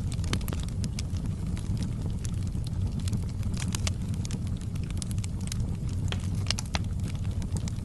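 Wood fire crackling in a fireplace: scattered sharp pops and snaps over a steady low rumble of flames.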